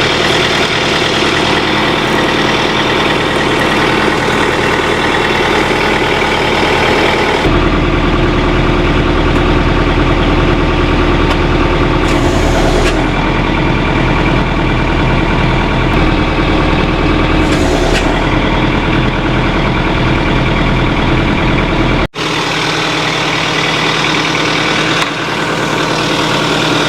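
Tractor engine running steadily. About seven seconds in it turns louder and deeper, as under the load of the hydraulics raising the rock shaft. It settles back to its earlier note after a brief dropout near the end.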